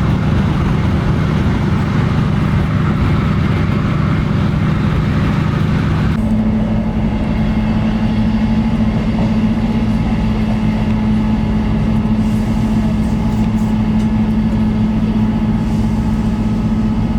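Diesel train heard from inside the coach, running steadily with engine drone and rolling noise. About six seconds in, the engine note steps suddenly up to a higher steady pitch.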